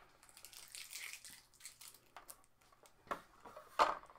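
Plastic packaging and tape crinkling and rustling as a new sewing machine is unwrapped, then two sharp clicks near the end as parts of the machine are handled.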